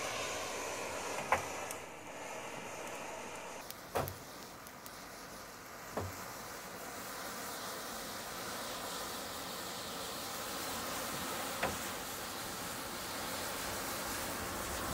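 Wooden matchsticks burning in a chain reaction: a steady rush of flame with four sharp pops spread through it.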